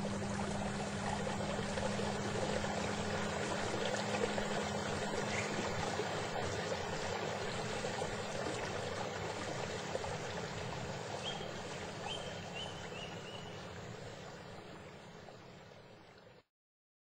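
Water rushing and splashing along the hull of a moving canoe, with a steady low hum over it for the first few seconds. The sound gradually fades and then cuts off shortly before the end.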